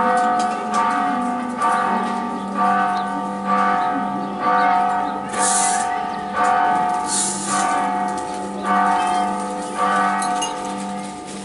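A single church bell tolled about once a second, each stroke ringing out and fading before the next. Two brief hissing noises sound in the middle.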